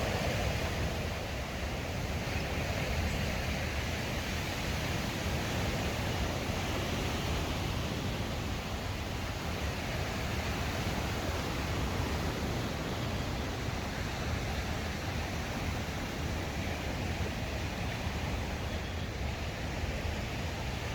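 Steady, even rush of lake waves washing on the shore, mixed with wind.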